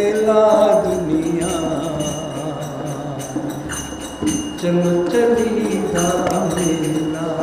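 A man singing a devotional verse in long, drawn-out held notes, over steady jingling percussion.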